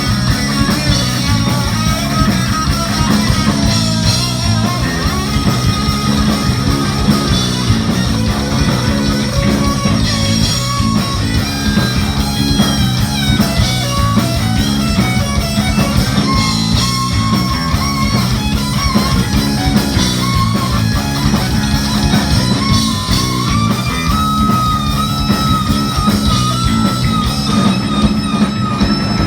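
Heavy metal music, with electric guitar over a fast, driving bass and drum beat.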